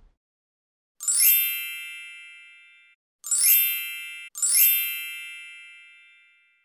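Three bright chime sound effects, each struck and then ringing out and fading over about two seconds. The first comes about a second in; the second and third come close together, about a second apart.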